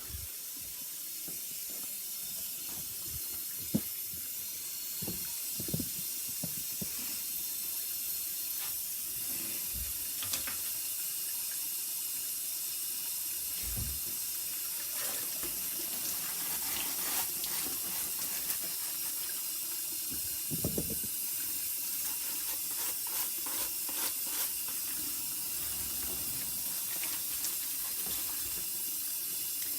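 Kitchen tap running steadily into a sink, with a few light knocks and clatters.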